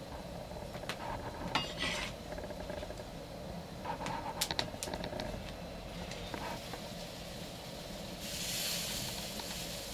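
Scattered light clicks and rubbing as a hand handles a salted, grilled pretzel on a wooden board. A soft, even hiss comes in about eight seconds in.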